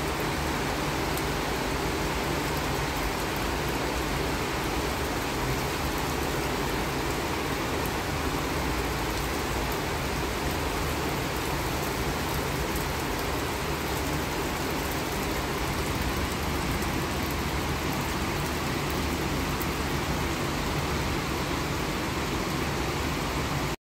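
Heavy tropical downpour of a squall, falling steadily as an even hiss of rain. It cuts off suddenly just before the end.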